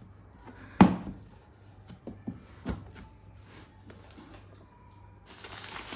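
Knocks of a heavy parcel box being handled and opened: one sharp knock about a second in, then a few lighter taps. Near the end, plastic packaging starts crinkling.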